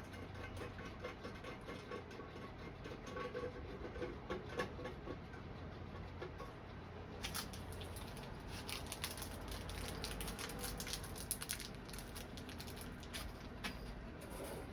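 Small scratching clicks and rattles of bolts and hardware being handled and fitted by hand, sparse at first and busier from about halfway through.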